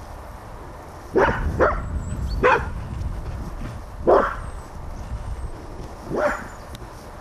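A dog barking five times at uneven intervals, with a low rumble under the first few barks.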